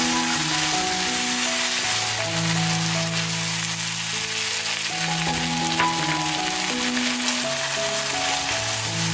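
Pan-fried dumplings, onion and green chili peppers sizzling steadily in a hot wok as they are stirred with the sauce. Soft background music with long held notes plays throughout.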